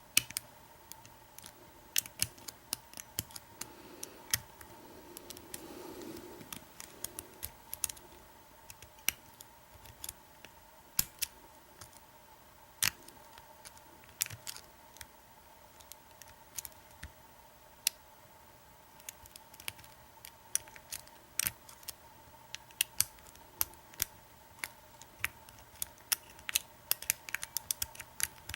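Small irregular metallic clicks from picking an American 1100 padlock: a pick and tension wrench working the pin stack, pins setting and spool pins clicking. The lock is in a false set held by spool pins.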